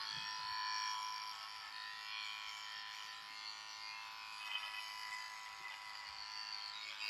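Cordless electric clipper buzzing steadily as it is run along the face, trimming beard hair.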